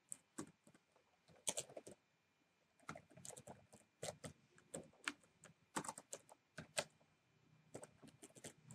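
Faint computer keyboard typing: short, irregular runs of keystroke clicks, with a pause about two seconds in and another near the end.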